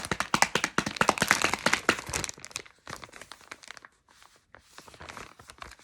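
Blind-box packaging being torn open and crinkled by hand: a dense run of crackling for about the first two seconds, then sparser, fainter rustling.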